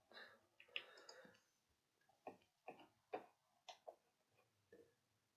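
About half a dozen sharp computer mouse clicks at irregular spacing, after a soft rustle at the start.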